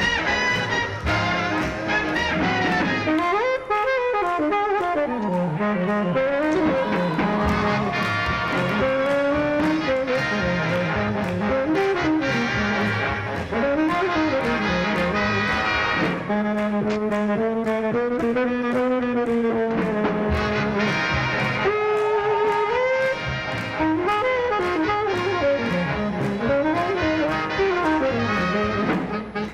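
Up-tempo swing jazz with horns playing bending, sliding melody lines over a steady beat.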